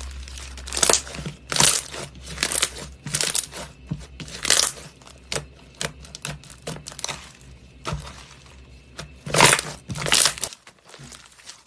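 Slime being squeezed and pressed by hand, a run of short squishy, crackly bursts about once a second, the loudest pair near the end.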